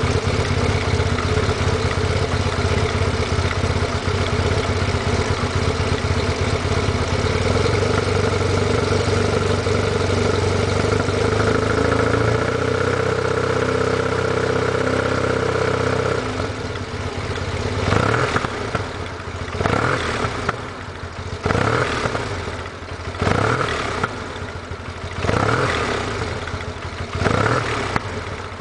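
Yamaha TMAX scooter's parallel-twin engine breathing through a Malossi full exhaust system, with a fairly quiet, dry note. It idles steadily for a little over half the time, then is blipped repeatedly, about one short rev every second or two, falling back between revs.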